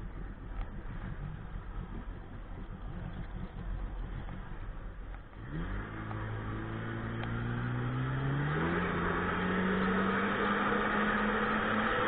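Sea-Doo personal watercraft engine starting about halfway through and quickly rising in pitch, then revving up again to a higher steady pitch as the craft gets under way. Before it starts there is only a rough rushing noise.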